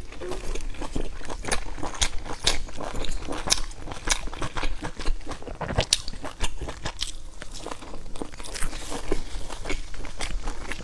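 Close-miked chewing and biting into a pan-fried flatbread, with many irregular crisp crunching clicks.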